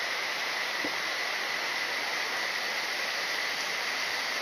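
Steady rush of fast-flowing water from a rainforest stream, an even continuous noise with no breaks.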